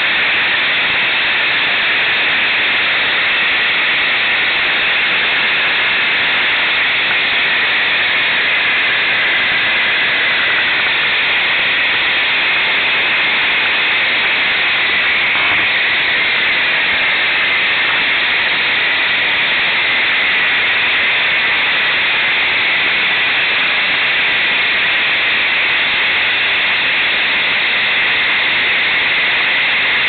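Loud, steady hiss like static, with nothing else standing out and no change in level.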